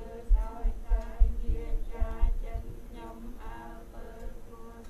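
A woman's singing voice over a steady low hum, with several dull low thumps in the first half.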